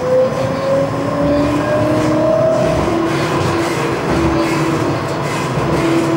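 Siemens Combino D2-class tram running along, heard from inside the car: its electric traction motors whine, rising in pitch over the first couple of seconds as it picks up speed and then holding a steady note, over the rumble of the wheels on the track.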